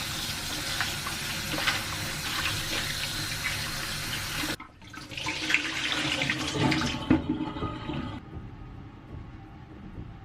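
Water running from a tap into a sink, cut off abruptly about four and a half seconds in, then running again for a couple of seconds before it dies down.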